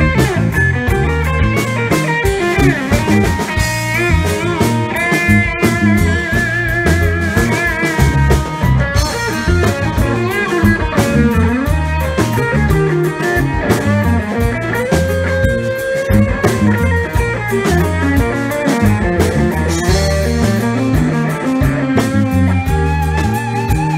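Live band music led by an electric guitar solo: sustained lead notes with wide, wavering vibrato over bass and a steady drum beat.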